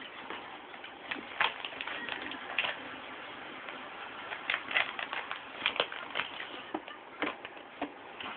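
Plastic snack packet crinkling and crackling as a baby grabs and handles it, in irregular clusters of sharp crackles.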